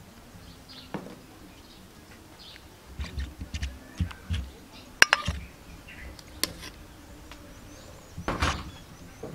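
A metal ladle scooping soup from a large aluminium pot and clinking against a ceramic bowl, with a few sharp clinks and low knocks. The filled bowl is set down on a table with a knock near the end.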